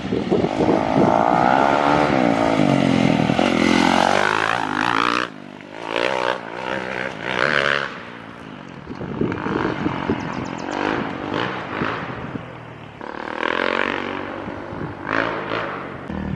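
A Kawasaki KX450X's single-cylinder four-stroke engine with an FMF 4.1 RCT exhaust, riding past loudly with its pitch bending up and down. The level drops suddenly about five seconds in, then comes short revving bursts and quieter running. A second loud pass comes near the end.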